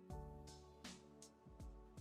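Quiet instrumental background music: held chords over a light, regular drum beat.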